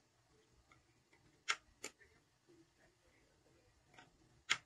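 Four short, sharp clicks: a pair close together about a second and a half in, then two more near the end, the last one the loudest.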